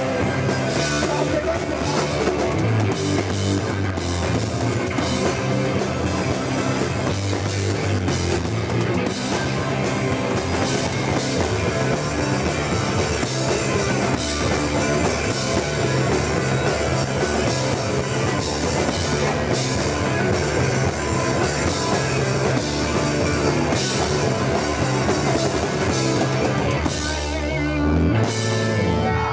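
A hardcore punk band playing live, with fast pounding drums, cymbals and distorted guitar and bass. The song breaks for a moment near the end, then finishes with a last burst and stops.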